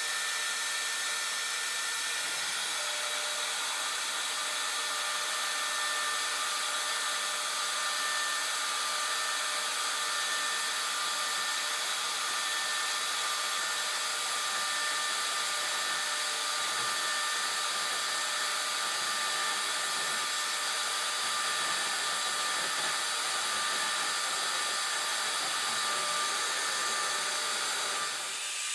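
Small CNC router running with its dust extraction vacuum: a steady rushing hiss with a few high, steady whine tones from the spindle and extractor motors. The sound changes slightly near the end.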